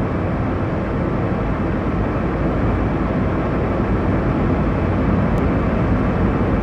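Steady jet airliner engine noise, an even low rumbling hiss with no change in pitch.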